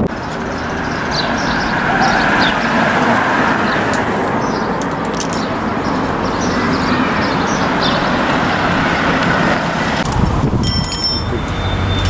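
Street traffic noise: a steady wash of road and vehicle sound. A brief high-pitched ringing tone comes near the end.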